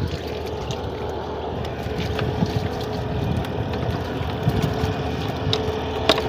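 Wind rumbling on the microphone under a faint steady hum, with scattered light clicks and patters as fish are tipped from a hand net into a plastic crate.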